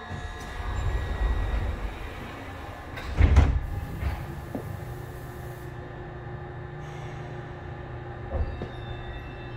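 Subway car's sliding doors closing, shutting with a loud thud about three seconds in, over the steady low hum of the stationary train. A couple of softer knocks follow.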